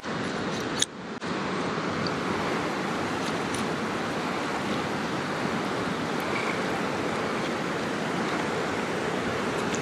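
Steady rushing of running water, with a short drop and a click about a second in.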